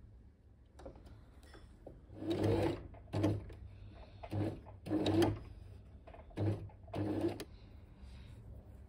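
Electric sewing machine stitching felt in about six short runs, each half a second or less, starting and stopping between about two and seven and a half seconds in.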